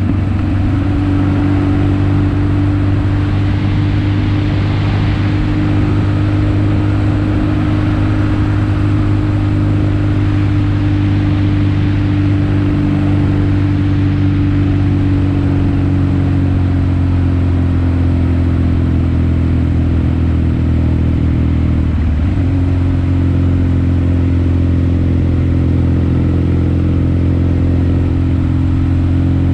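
Kawasaki KZ750 motorcycle engine running steadily on the move, with wind and road noise. Its pitch sags slowly past the middle, dips briefly about two-thirds of the way through, then holds steady again.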